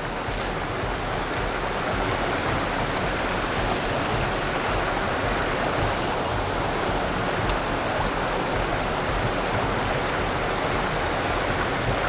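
Mountain stream water rushing over rocks, a steady even noise.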